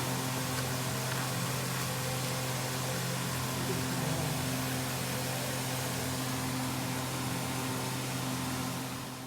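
Steady machine-like hum with an even hiss, fading out near the end.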